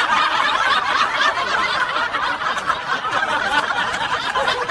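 Several people laughing together: a steady, continuous wash of overlapping laughter.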